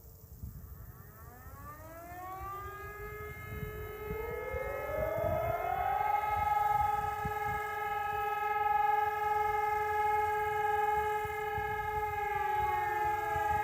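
Civil defense siren sounding in a test. It winds up over about five seconds, its several tones rising together to a steady wail, holds, and near the end begins to wind down.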